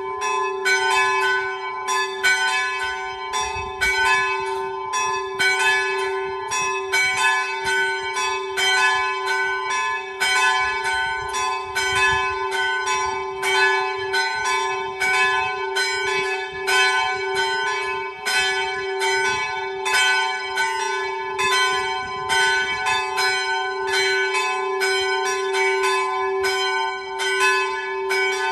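Two of the church's three small bells swinging together in a full peal, rung by hand with cables. Their strokes fall unevenly, about two or three a second and overlapping, with no pause, each over the hum of the one before.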